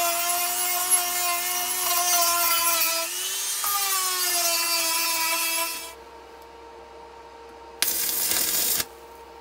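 A small handheld rotary tool whines at high speed while grinding steel. Its pitch dips under load about three seconds in and sags lower before it stops about six seconds in. A separate noisy burst of grinding, about a second long, comes near the end.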